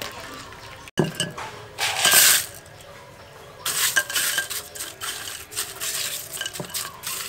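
Crushed ice rustling and clinking as a hand stirs freshly boiled shrimp through it in a bowl to chill them. It comes in uneven bursts with scattered clicks, the loudest burst about two seconds in.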